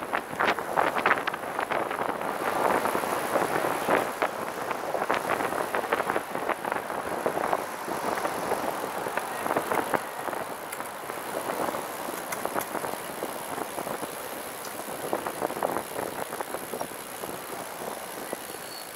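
Road noise while riding a recumbent trike in traffic: tyres rolling on pavement, wind on the microphone and cars passing close by, louder in the first half and easing off toward the end.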